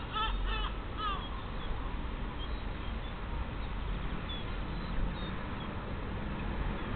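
Sparrows chirping: a quick, even series of chirps, about four a second, that stops about a second in. A few faint chirps follow over a steady low background rumble.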